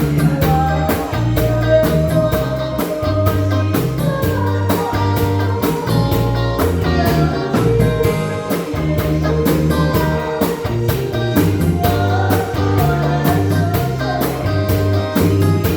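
Song music with a steady drum beat, a repeating bass line and a melody line over them.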